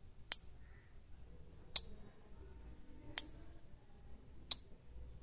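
Single-channel 5 V relay module clicking four times, evenly about one and a half seconds apart, as its relay switches on and off in turn.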